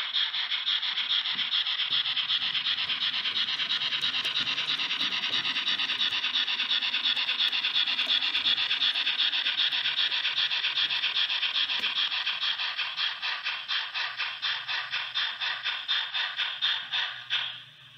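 H0 Märklin model steam locomotive's sound decoder chuffing in a steady, rhythmic beat from a small speaker. The chuffs stand out more distinctly in the last few seconds, then stop abruptly near the end.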